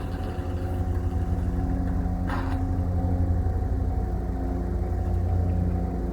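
Diesel locomotive engine running with a steady low rumble and a few steady tones above it, from a JR Freight DD200 diesel locomotive passing a level crossing. A brief hiss comes about two seconds in.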